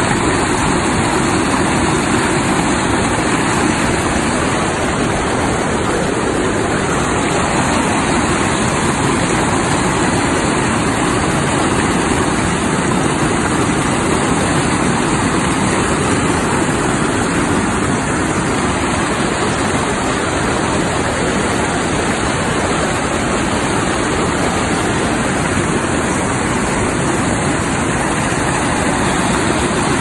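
Whitewater rapids of a fast river pouring over rocks: a loud, steady rushing of water.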